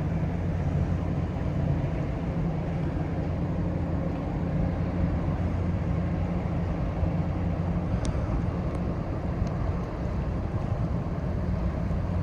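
Low, steady drone of a large car carrier's engines as the ship passes, growing weaker near the end.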